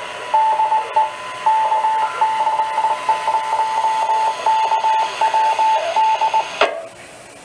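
Ham radio transceiver receiving Morse code: keyed beeps of long and short length over a steady higher tone and radio hiss. The transmission cuts off abruptly with a short burst of noise about six and a half seconds in.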